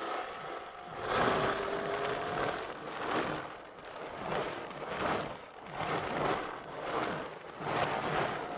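Wind rushing and buffeting over the microphone of a motorcycle-mounted camera at road speed. The rushing swells and dips about once a second.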